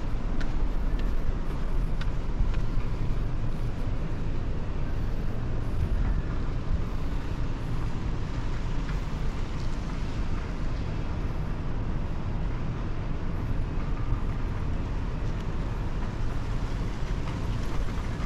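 Wind rumbling and buffeting on the microphone outdoors: a steady low rumble with a faint hiss over it.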